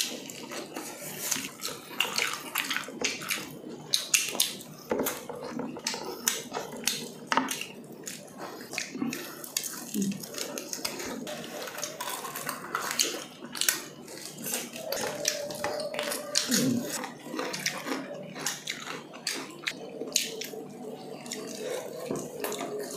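Close-miked wet chewing and lip-smacking of two people eating grilled chicken inasal with their hands: a dense stream of small smacks, clicks and squelches.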